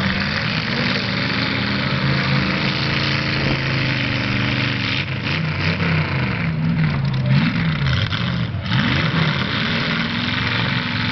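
Several demolition derby cars' engines running loud and revving, their pitch rising and falling repeatedly through the middle of the stretch, over a steady rush of noise.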